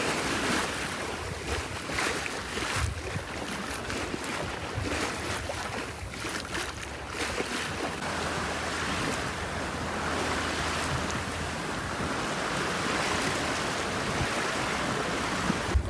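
Water rushing and splashing past a sailboat's hull, with wind on the microphone and no engine running: the boat is under sail alone.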